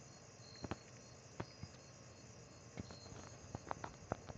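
Crickets chirping steadily, with scattered sharp clicks and crunches that come more often in the last second and a half.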